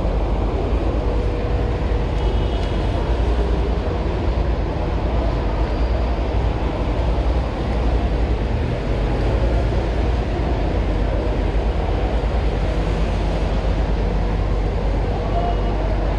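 Steady low rumble of city street noise and traffic.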